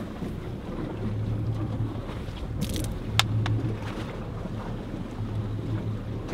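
A boat's engine running with a low hum that swells and fades about every two seconds, over wind and water noise. A plastic water bottle crackles briefly and gives a sharp click a few seconds in.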